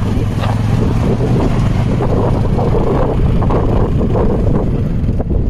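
ATV (quad bike) engine running as the quad pulls away across loose gravel, a steady low hum with heavy wind buffeting the microphone.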